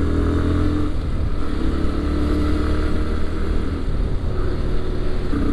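Motorcycle engine running at a steady cruise while riding, with a constant low drone and a rush of wind and road noise over it.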